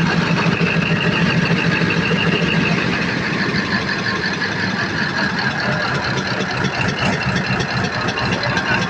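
Cummins KTA50 V16 turbocharged diesel engine, freshly overhauled, idling steadily on its break-in test run.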